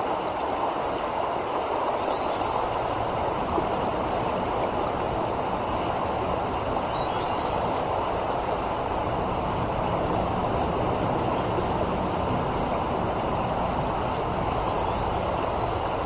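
River rapids rushing steadily over a rocky bed. Faint high bird chirps come through about two seconds in, around seven seconds, and near the end.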